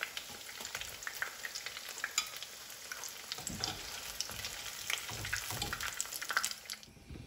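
Hot oil sizzling and crackling in a pan after deep-frying cauliflower, with a spoon stirring and scraping in it and a few low knocks. The sizzling cuts off near the end.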